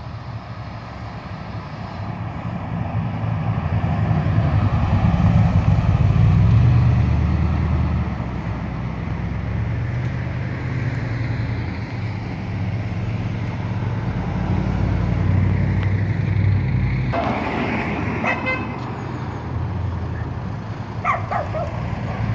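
Kellison kit car's engine rumbling at low revs as it drives up, loudest about five seconds in. A sudden louder rush of noise comes about seventeen seconds in, and a few short higher-pitched sounds near the end.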